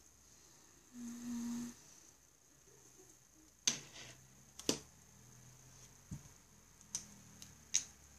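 Light sharp taps and knocks from a pen and a small spiral notebook being handled and set down on a wooden desk, a handful of them spread over the second half, after a short soft sound about a second in.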